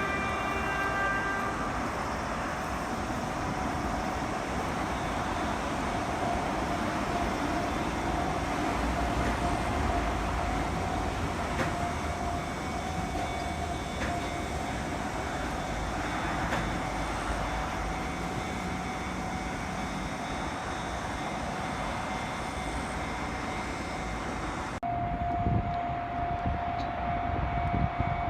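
Level-crossing-style warning alarm at an Osaka Monorail track switch, a pitched electronic tone that cuts off about a second and a half in. After it comes a steady rumble of trackside noise with a faint steady tone running through it.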